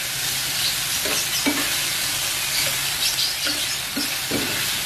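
Crispy shrimp in sweet-and-sour oyster sauce sizzling steadily in a frying pan as a spatula stirs it, with a few short scrapes of the spatula against the pan.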